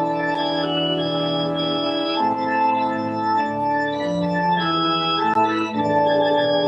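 Church organ playing slow, sustained chords, with the notes moving to a new chord every second or so.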